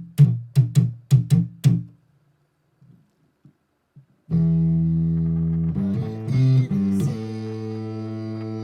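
Guitar music: a quick run of plucked notes that stops about two seconds in, a short pause, then chords held from about four seconds in.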